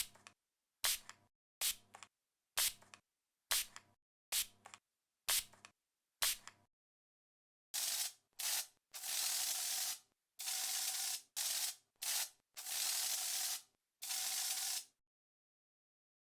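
Spray bottle spritzing: about eight short squirts roughly one a second, then after a short pause about seven longer sprays, some held for a second or more.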